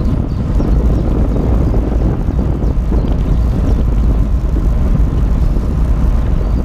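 Loud, steady wind rush on the microphone from a bicycle going fast down a hill.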